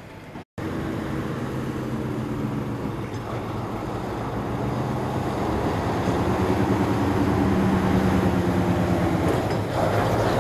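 British Rail Class 03 diesel shunter 03144 running light, its Gardner eight-cylinder engine running steadily and growing louder as it approaches.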